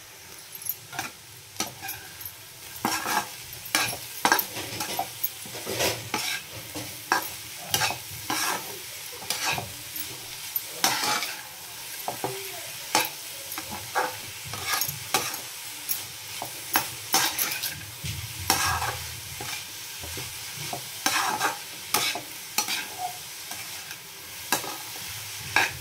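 Steel spatula stirring grated carrots in a kadai, scraping against the pan in repeated strokes roughly one or two a second, over a faint steady sizzle of the frying. The salt just sprinkled on is being mixed into the nearly finished fry.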